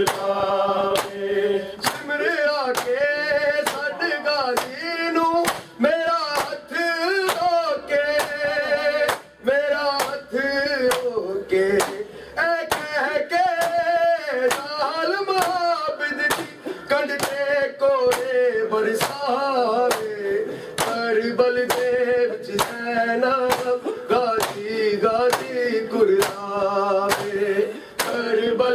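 Men chanting a mourning noha, with a steady beat of bare-handed chest strikes (matam) from a group of men keeping time with it.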